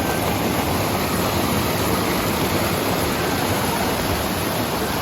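Water rushing steadily over a small creek waterfall close by, an even hiss-like roar with no breaks.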